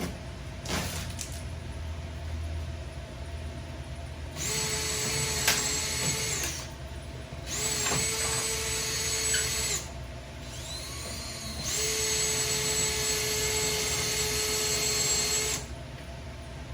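Power drill run in three bursts of about two, two and four seconds, with a steady whine, drilling the heads off rivets.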